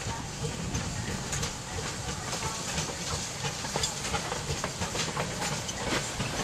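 4-4-0 steam locomotive passing close by with steam hissing, followed by its passenger coaches rolling past, wheels clicking irregularly over the rail joints.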